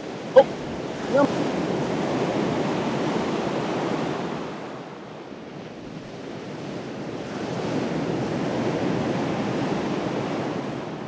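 Gulf surf breaking and washing up the beach, swelling twice with a lull in between, with wind buffeting the microphone. A brief sharp sound comes about half a second in.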